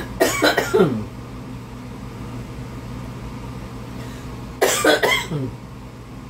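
A woman coughing twice, about four seconds apart, each cough a sharp burst that tails off falling in pitch, over a steady low hum.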